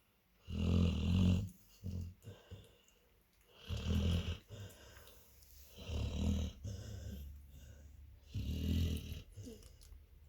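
Sleeping Labrador snoring: four snores about two and a half seconds apart, each a low rumble with a breathy hiss.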